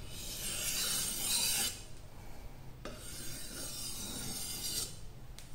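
Steel wakizashi blade pushed along a wet high-grit whetstone while being sharpened: two long hissing strokes, each a little under two seconds, about a second apart.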